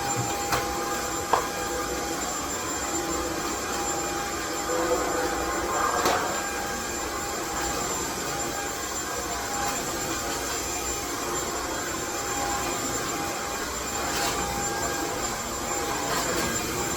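Steady white-noise hiss, even across the whole range, with a faint steady tone running through it and a few faint clicks scattered across it.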